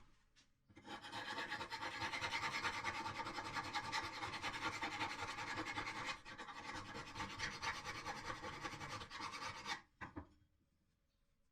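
Hand filing of a steel part: a continuous rasping scrape that starts about a second in, falters briefly around six seconds in, and stops about ten seconds in.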